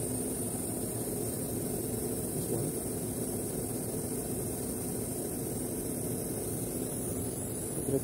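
Rooftop central air-conditioning condensing unit running: a steady mechanical hum with a constant low tone and a faint high hiss over it.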